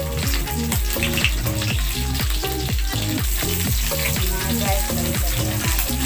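Galunggong (round scad) frying in oil in a wok, a steady sizzle, with a spatula scraping the pan as the fish are turned. Background music with a steady, repeating bass beat plays underneath.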